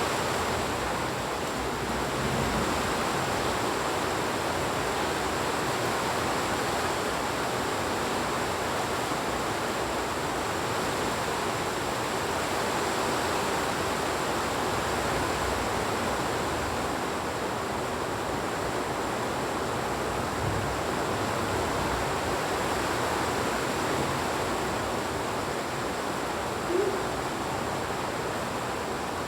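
Heavy rain falling in a steady, even hiss. Near the end comes one brief, short sound.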